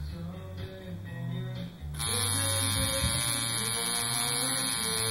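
Guitar music, then about two seconds in a coil tattoo machine starts buzzing steadily over it as it works the skin.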